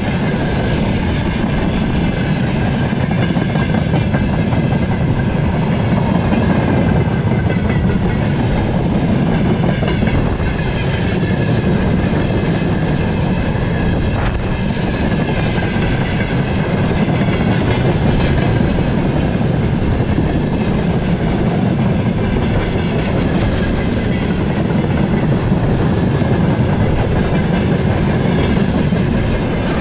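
Freight train of railway tank cars rolling past close by, the wheels clattering rhythmically over the rail joints. A steady rumble is overlaid with a wavering high ringing tone.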